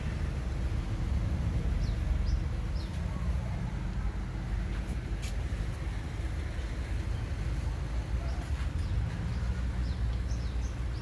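Outdoor street ambience: a steady low rumble, with a few faint, short, high chirps of small birds about two seconds in and again near the end.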